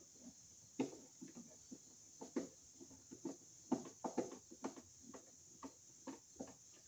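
Hand screwdriver turning the mounting screws of a 30 amp receptacle into its electrical box: a run of light, irregular clicks and scrapes, about three a second.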